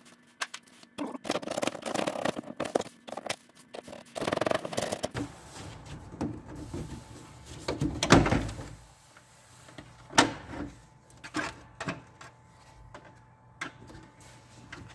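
Irregular clicks, knocks and rustling of hand tools working on plastic bumper trim, as small 7 mm head fasteners are taken out. The loudest knock comes about eight seconds in and a sharp click about ten seconds in.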